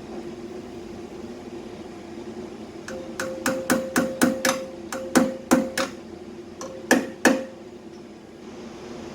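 A hammer striking sheet metal about a dozen times in quick, uneven groups, each blow ringing briefly, over a steady hum.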